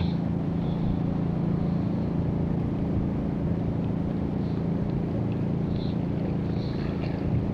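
Motorboat engine running steadily at a low, even pitch.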